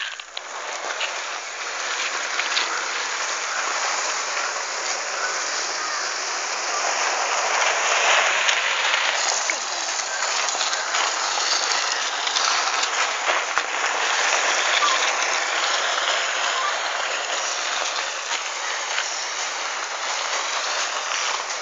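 Dried palm-leaf sheath scraping along a rough paved road as it is dragged with two small children sitting in it: a steady, loud scraping hiss.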